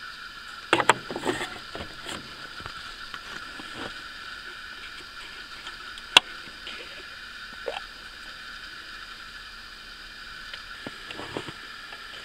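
Hands working at a plastic power steering fluid reservoir: a brief clatter of plastic handling in the first two seconds, one sharp click about six seconds in as the reservoir cap is gripped, and a few light knocks near the end, over a steady hiss.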